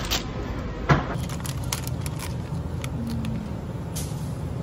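Steady low hum of a convenience store, with a few sharp plastic clicks and clacks from a carried plastic shopping basket. The loudest clack comes about a second in, followed by a few lighter ticks.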